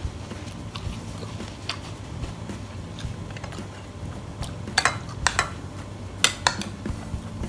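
Metal spoon clinking and scraping in a small ceramic bowl: a few light taps, then several sharp clinks in the second half.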